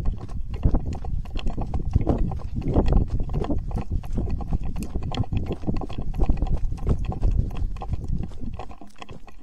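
Footsteps hurrying across a dry ploughed field, heard as a fast, irregular run of thuds and scuffs, with the gun-mounted camera knocking and rubbing against the gun as it is carried.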